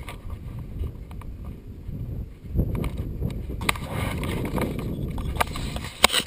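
A paramotor's cage and frame rattling while it is carried and handled through dry grass, with rustling and a few sharp knocks in the second half, the sharpest near the end as the unit is tipped. The engine is stopped.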